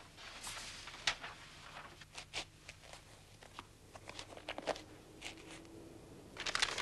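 Scattered light knocks and rustles of people moving about a small room, with a denser burst of rustling near the end.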